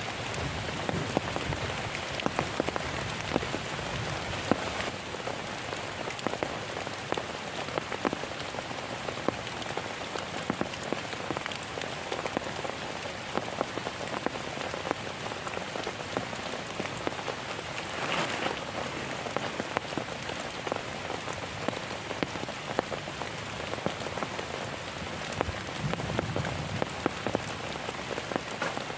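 Heavy rain falling steadily, with many individual drops striking close by as sharp ticks over the even hiss of the downpour.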